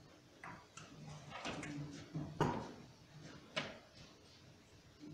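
A man's voice reading aloud in Navajo into a microphone, slow and quiet, in short phrases with pauses. A sharp click about two and a half seconds in is the loudest moment.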